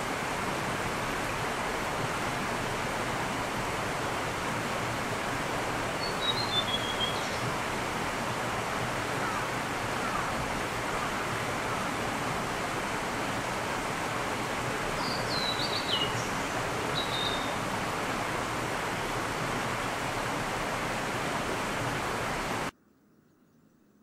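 Steady rush of a babbling stream, with a small bird chirping briefly twice over it. The sound cuts off near the end.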